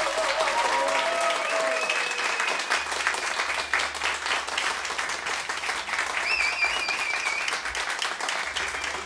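Audience applauding steadily, with a few wavering high calls from the crowd rising over the clapping.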